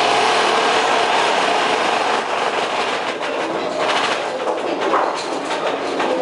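Roller-coaster mine-train cars rattling and clattering along the track, with the wheels running on the rails.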